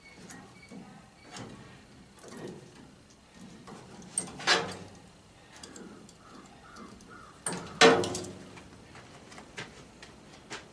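Metal furnace parts and tools being handled: scattered knocks and clinks, with two loud metal clanks about four and a half and eight seconds in.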